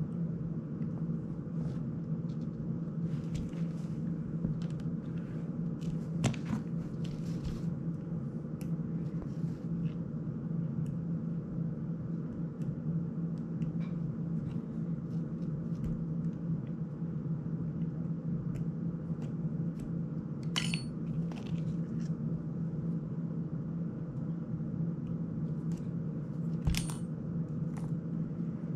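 Small metallic clicks and taps of a precision screwdriver and tiny screws being worked on an FPV drone's frame and motor mount, over a steady low hum. A few sharper clicks stand out about six seconds in, about twenty seconds in, and near the end.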